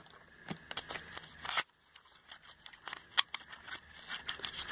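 Soft handling noises of a small cardboard nail-polish box and bottle turned in the hand: scattered light clicks and rustles.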